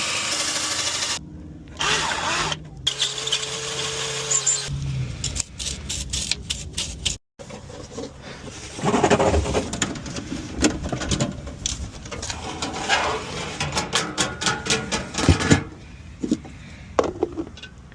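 Tool work on the mounting bolts of a Vevor diesel heater: runs of sharp clicks and metal clattering, with a steady hum for a couple of seconds about two seconds in, and abrupt cuts between sections.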